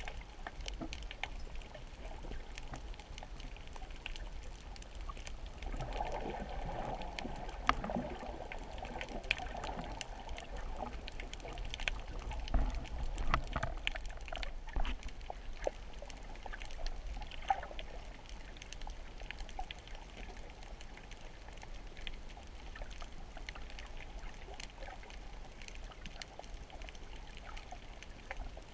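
Underwater reef ambience: a steady watery hiss over a low rumble, speckled with many scattered sharp clicks, with a louder rush of water from about six to ten seconds in.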